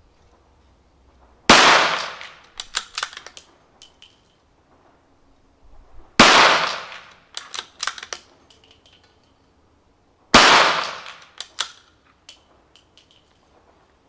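Three shots from a CZ 455 bolt-action rifle in .22 WMR, about four and a half seconds apart, each ringing out briefly. After each shot comes a quick run of small metallic clicks as the bolt is worked to eject the case and chamber the next round.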